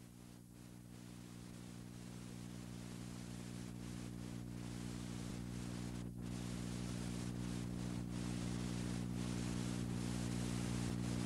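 Low electrical hum with tape hiss from an old video tape's sound track, steady in pitch and slowly growing louder.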